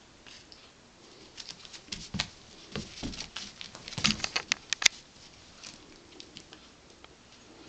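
A cat's paws scrabbling and thumping on a braided rug as it pounces at a toy mouse. A quick run of scuffs and taps comes between about one and five seconds in, loudest near the end of the run, then a few scattered ones.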